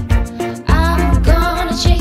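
Upbeat pop song: a woman singing over a steady beat of low drum hits.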